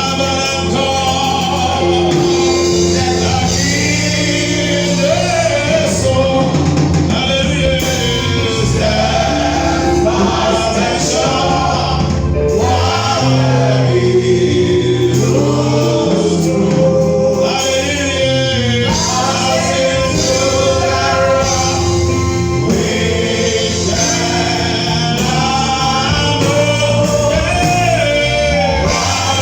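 Gospel worship music: singers with a backing band, sustained sung phrases over steady chords.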